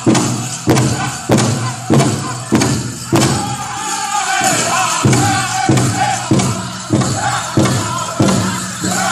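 Powwow drum group performing a contest song: a big drum struck together in a steady beat, about one and a half strikes a second, with the singers' voices coming in about three seconds in. The dancers' bells jingle along with it.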